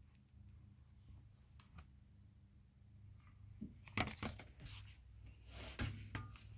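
A glass display-cabinet door being handled and pulled open. About three and a half seconds in, a run of sharp clicks, knocks and scraping starts, loudest about four seconds in and again near six seconds.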